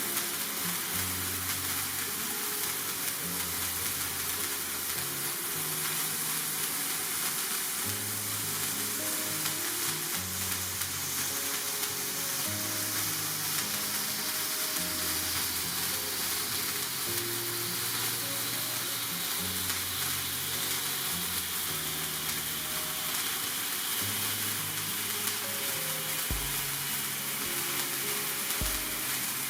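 Birthday cake sparkler candle burning with a steady hiss, over background music with a plodding bass line.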